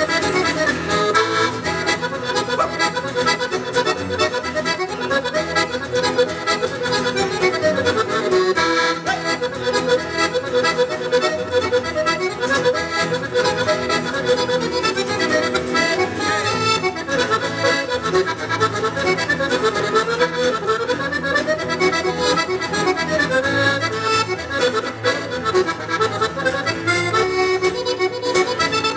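Live instrumental Scottish folk tune led by accordion, a continuous melody over sustained bass tones.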